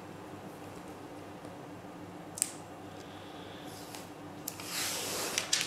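Hands handling table tennis rubbers at a table: a single sharp click, then a short rustle, and near the end about a second of rustling and scraping followed by two sharp clicks.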